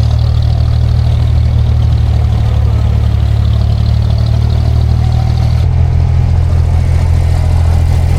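A motor engine running steadily at a low, even note; its note changes abruptly about two-thirds of the way through.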